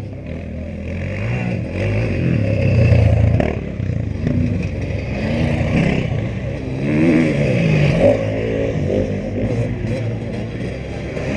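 Off-road racing motorcycle engines revving up and down through the gears as the bikes pass on a dirt track, louder about three seconds in and again near eight seconds.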